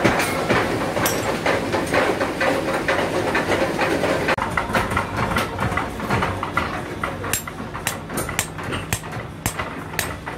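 A dense, rattling workshop clatter, then, after an abrupt change about four seconds in, sharp separate hand-hammer blows that come faster toward the end, seating a wooden handle in a forged boiler scaling hammer head.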